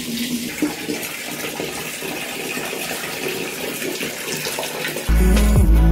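Tap water running in a steady stream into a plastic bucket. About five seconds in it cuts off and background music starts.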